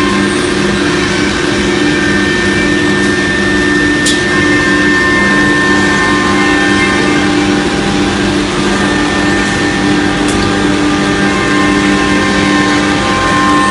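CNC router with a 6 kW HSD spindle running steadily, a constant multi-tone whine over a steady hiss, with two short clicks about six seconds apart.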